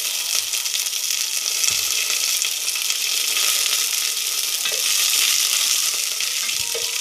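Curry leaves and mustard seeds sizzling and crackling in hot oil in an enamel pot: the tempering stage of a curry. A wooden spoon stirs them near the end.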